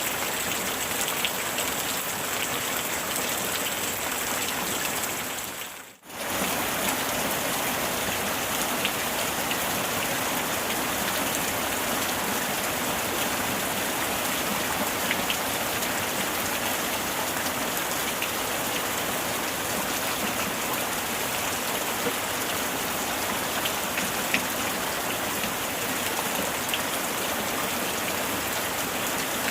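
Heavy rain falling steadily, with a hiss of many drops and occasional single drops ticking. It cuts out for a moment about six seconds in, then resumes.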